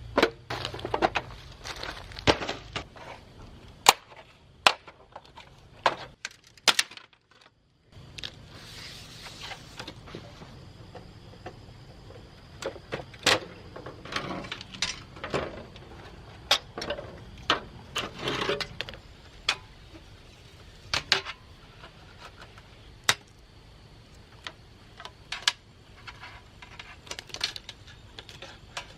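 Irregular clicks, taps and clatter of plastic and metal parts being handled and pried apart during the teardown of an old LCD monitor, with a brief silent break about seven seconds in.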